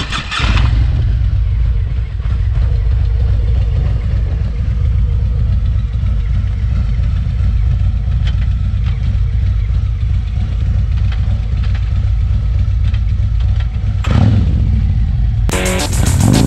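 Harley-Davidson Road King Special's V-twin engine running with a steady low rumble. Music comes in about a second before the end.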